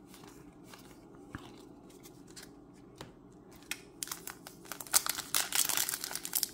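Light clicks of trading cards being handled, then from about four seconds in, a booster pack's foil wrapper being crinkled and torn open.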